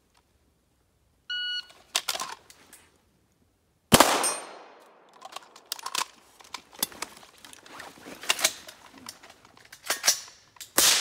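A shot-timer beep about a second in, then pistol shots with echoing tails, a run of clicks and knocks as pistols are holstered and rifles are pulled and chambered, and more loud shots near the end as the rifles fire on steel.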